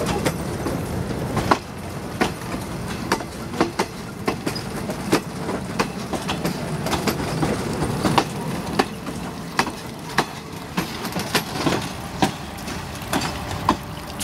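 Eastern & Oriental Express passenger coaches rolling past at close range, their wheels clicking sharply and irregularly over rail joints above a steady rumble.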